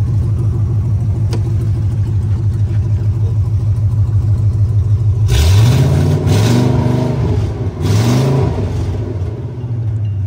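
2015 Ford F-250 Super Duty's 6.2 L gasoline V8 idling steadily, then revved three times in quick succession about halfway through before settling back to idle.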